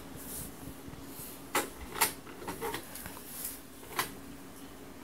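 A few faint, scattered clicks and light knocks over a low steady hum.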